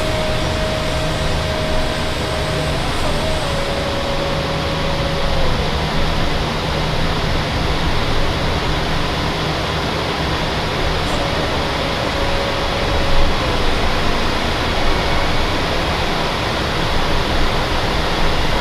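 Learjet 45 in flight: a steady rush of airflow and jet engine noise, with a faint steady tone that shifts in pitch a few times.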